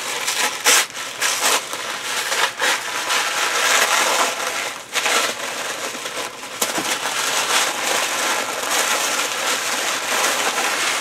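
Tissue paper being unwrapped by hand, rustling and crinkling continuously with irregular sharper crackles.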